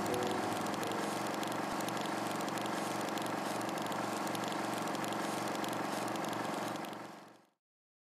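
A steady rattling whir with a low hum under it and a soft pulse about four times a second, fading out about seven seconds in.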